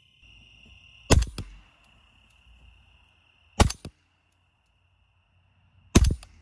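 Three suppressed rifle shots about two and a half seconds apart, fired through a 3D-printed Inconel 718 suppressor. Each is a sharp report with a short tail. Insects trill steadily in the background.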